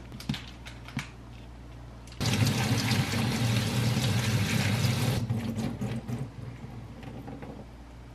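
Kitchen tap water pouring onto soybean sprouts in a plastic colander over a steel sink, starting about two seconds in and stopping about three seconds later, then tailing off.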